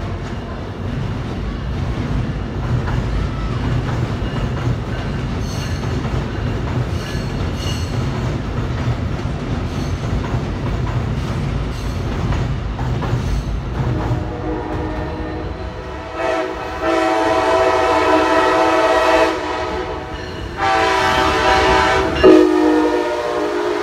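Brightline passenger train: a low rumble of the train rolling, then the locomotive's horn sounding, faint at first and then two long loud blasts with a short break between them.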